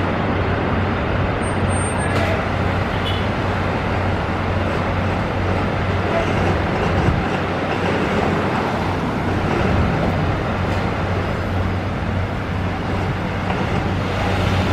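Steady motor-vehicle noise: a low, even engine hum under a constant rumble of road traffic.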